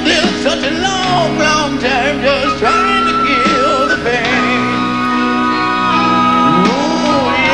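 Live rock ballad: a male singer at a grand piano sings a wavering, ornamented vocal line over piano and band, with long held high notes sustained behind the voice.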